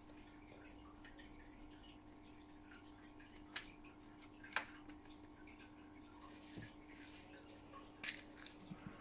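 Quiet handling of small plastic model parts: a few sharp clicks and taps, the loudest about four and a half seconds in, over a steady low hum.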